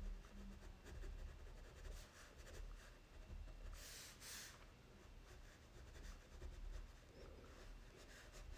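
Black Crayola crayon scratching faintly on paper in short shading strokes, with a brief double hiss about four seconds in.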